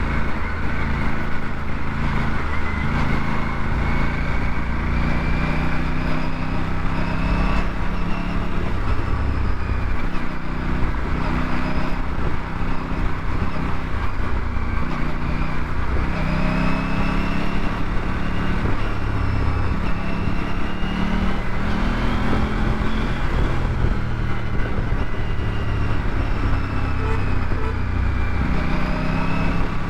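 Aprilia RS 457's parallel-twin engine running under way, its pitch rising and falling several times with the throttle, over steady wind and road noise.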